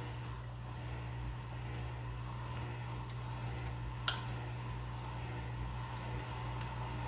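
A steady low mechanical hum with a faint even hiss, and a single sharp click about four seconds in.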